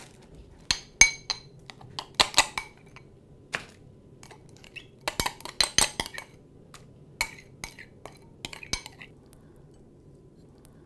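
Metal knife clinking and scraping against a small glass bowl while soft herb butter is scooped out. The clinks come in scattered clusters, each with a short bright ring.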